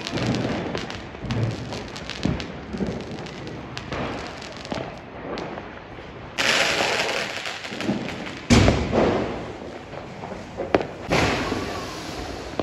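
Diwali fireworks and firecrackers going off around the neighbourhood, with a steady scatter of pops and bangs. A hissing rush comes about six and a half seconds in, and a loud bang follows about two seconds later. Near the end a ground fountain firework hisses as it sprays sparks.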